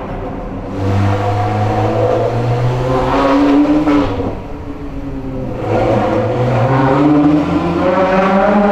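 Ferrari 360 Modena's 3.6-litre V8 accelerating through a catless Capristo exhaust. The engine note climbs twice, dropping back briefly about four seconds in before rising again.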